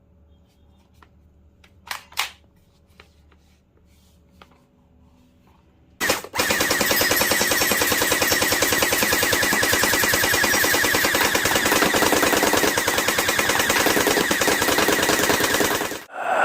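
Electric toy M16 gel blaster firing on full auto: after a few light handling clicks and two sharp clicks about two seconds in, a rapid, even stream of shots starts about six seconds in and runs for about ten seconds before cutting off suddenly.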